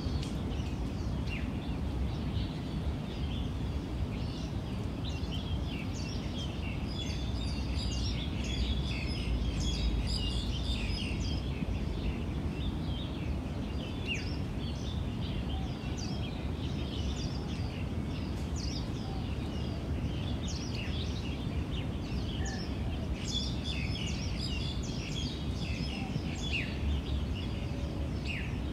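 Small birds chirping and twittering in many short calls, busier in a few spells, over a steady low rumble.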